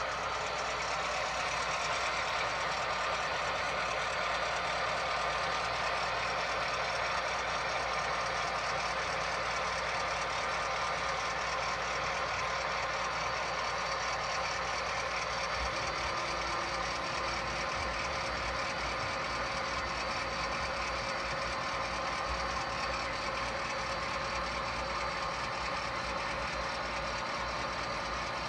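Sound-equipped model diesel locomotives playing recorded diesel engine running sound through small onboard speakers: a steady mechanical drone with a constant high tone and little deep bass, with a lower rumble joining about halfway through.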